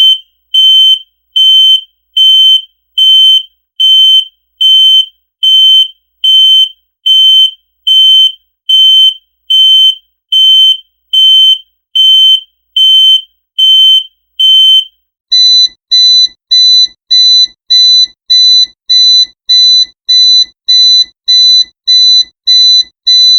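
Electronic fire alarm sounder beeping: a loud, steady high-pitched beep repeated a little more than once a second. About fifteen seconds in it switches to a different, slightly higher beep that repeats a little faster.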